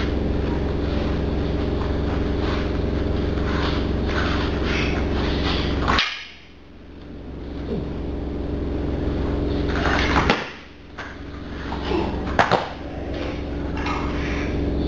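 A few sharp thuds of a jujutsu partner being taken down and thrown onto the mat, over a steady low background hum. The hum drops away briefly after the first two thuds.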